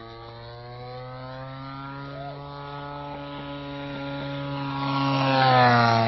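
Radio-control model airplane's 61cc gasoline engine running steadily in flight. It grows louder as the plane approaches, and near the end it drops in pitch as it passes close by.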